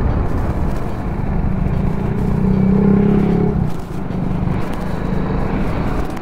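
Riding sound from a BMW G310GS's single-cylinder engine under wind rush and buffeting on the microphone. The engine hum swells for about a second near the middle, and the sound eases briefly about four seconds in.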